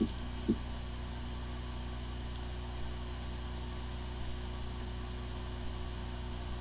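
Hard drive spinning with a steady hum of several low tones, sounding like a healthy drive although its firmware is corrupted and the computer cannot detect it. Two short low thumps come at the start and about half a second in.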